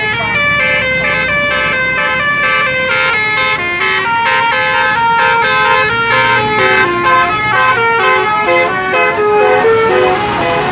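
Bus telolet horn, a set of electric air-horn trumpets playing a fast tune: several notes sounding together and stepping to new pitches every fraction of a second.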